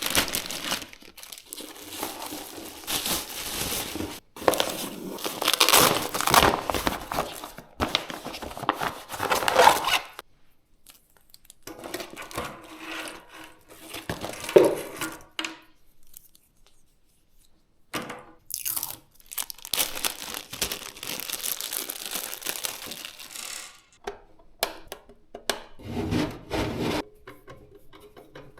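Hands working on PC parts during assembly: stretches of rubbing, rustling and tearing noise broken by two short pauses, then a series of quick clicks near the end.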